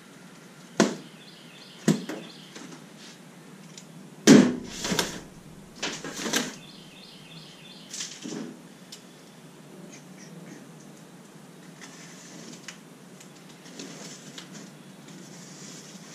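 A cardboard shipping box bound with plastic straps and tape being cut and pulled open: a string of sharp snaps and knocks over the first eight seconds, the loudest with a low thud about four seconds in, then quieter cardboard rustling.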